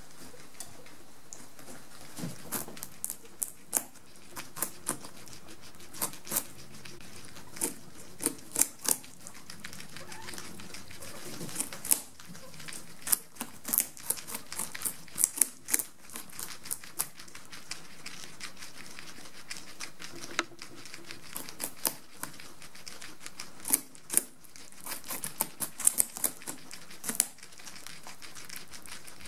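Guinea pigs gnawing and chewing pumpkin: a quick, irregular run of small, crisp crunches and clicks.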